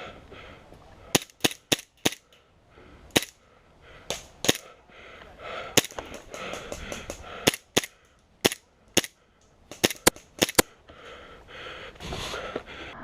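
Airsoft guns firing single shots: about seventeen sharp cracks at an irregular pace, some in quick pairs and triplets.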